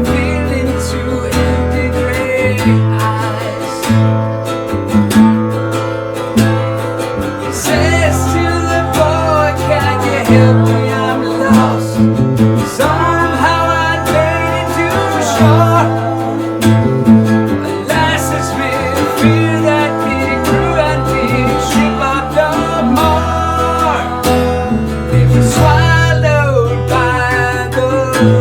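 Band music from a pirate-rock song played live: acoustic guitar strummed over a bass line, with a melodic lead line.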